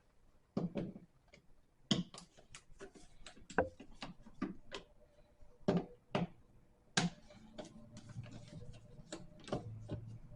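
Irregular plastic clicks and taps as the cover plate is worked off a GFCI outlet, a dozen or so sharp knocks at uneven spacing.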